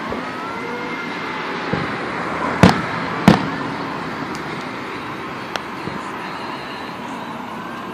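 Fireworks bursting: two loud bangs a little under a second apart about two and a half seconds in, with a few smaller pops before and after.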